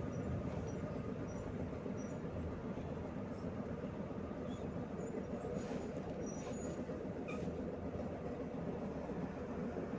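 PAZ-32054 bus's V8 petrol engine, running on LPG, heard from inside the passenger cabin: a steady low engine and cabin rumble with no rise or fall in pitch.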